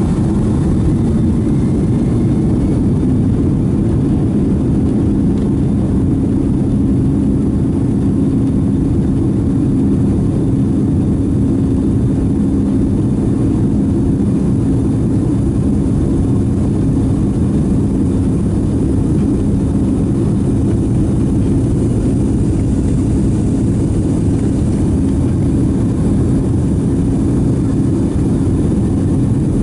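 Boeing 757-200's twin jet engines at takeoff thrust, heard from inside the passenger cabin as a loud, steady drone with a deep rumble underneath.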